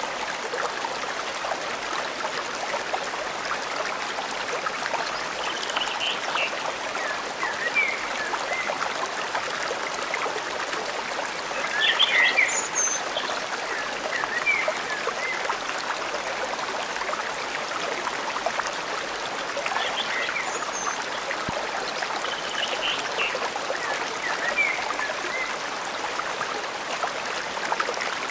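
Forest stream flowing steadily, with small birds chirping now and then over it; the loudest chirps come about twelve seconds in.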